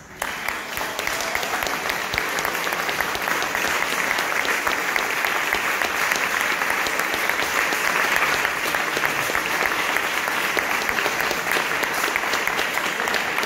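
Audience applause, dense and steady, breaking out at once as the music ends, with the performers on stage clapping too.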